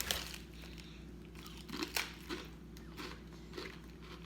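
Someone chewing crunchy salted dried worms, with faint irregular crunches and crackles.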